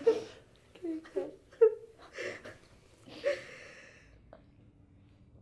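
Women sobbing in mourning: short broken whimpering cries and gasping breaths that die down about four seconds in.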